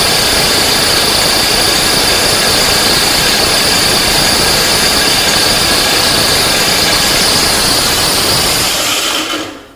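Maksindo AGR-GRP 150 electric dry-and-wet flour mill running and grinding rice to a coarse meal: a loud, steady grinding noise with a steady high whine. The sound dies away quickly near the end as the mill stops.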